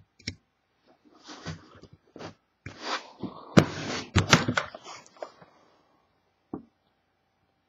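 Handling noise from a sealed hockey card box being turned over and handled: short rustles and a few sharp clicks and knocks, the loudest about three and a half and four seconds in, then mostly quiet.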